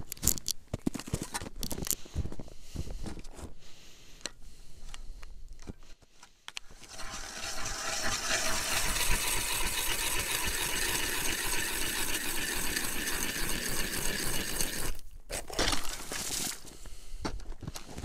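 Hand-cranked ice auger drilling a hole through river ice: a steady grinding scrape of the cutting blades through the ice that starts about seven seconds in and stops about fifteen seconds in. Before it, footsteps crunch in snow and the auger is knocked about as it is picked up and set in place; a few knocks and crunches follow as the drilling ends.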